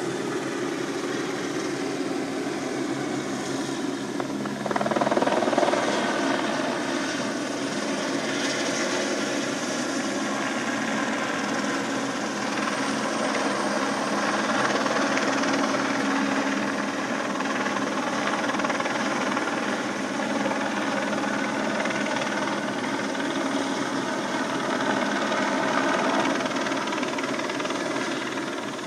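Helicopter running close by, its rotor and turbine giving a steady, even beat. It grows suddenly louder about five seconds in and then holds.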